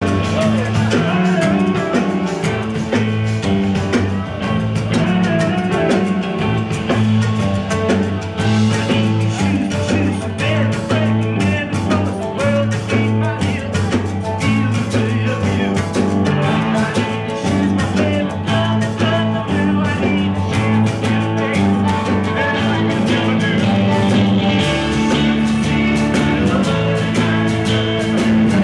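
Live rock band playing steadily: electric guitars, bass, keyboards and drums, with a singing voice over the band.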